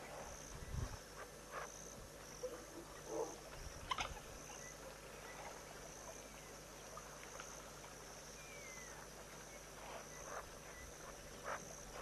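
Quiet waterhole ambience: an insect chirring steadily in an even, high-pitched pulse, with a few soft knocks and splashes, the sharpest about four seconds in.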